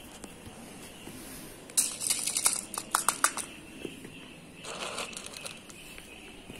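Plastic crinkling and clicking in two bursts, a longer one about two seconds in and a shorter one near five seconds, with several sharp clicks in the first.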